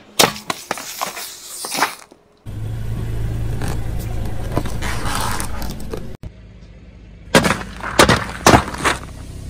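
Car tyre crushing objects in quick succession. A soda can crumples with a cluster of sharp crackles, then a stretch of steadier noise follows as the tyre presses down on a plastic action figure. Near the end several soda cans burst under the tyre with loud sharp cracks.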